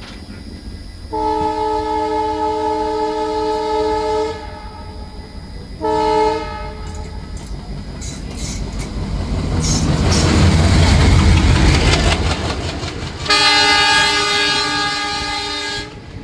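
An Indian Railways locomotive horn sounds a long chord blast, then a short one. The train passes close with a rising rumble and rhythmic wheel clatter on the rail joints, and the horn sounds again for about three seconds near the end.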